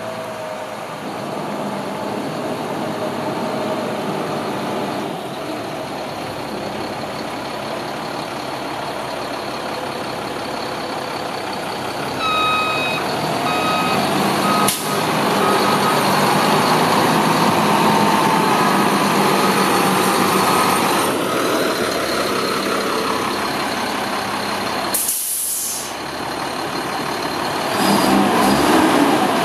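Sterling L8500 dump truck's diesel engine running as the truck moves backward, with a backup alarm beeping a few times about halfway through. A short sharp hiss of air near the end, then the engine runs louder.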